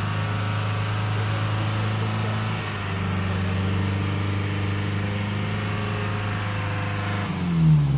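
An off-road 4x4's engine held at steady high revs, then a brief loud surge near the end as the revs fall away quickly.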